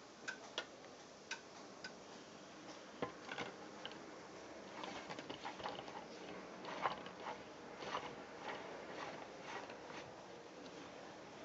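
Hard plastic clicking and rattling as a garden pressure sprayer's pump head is fitted into its bottle and its cap screwed down by hand. A few separate sharp clicks come in the first two seconds, then runs of small rapid clicks.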